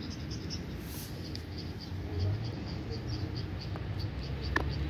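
A cricket chirping in a fast, even rhythm of about five high chirps a second, over a low steady rumble. One sharp click near the end.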